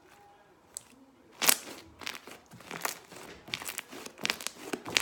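Fluffy slime being squeezed and stretched by hand, giving irregular crackling pops that start about a second and a half in.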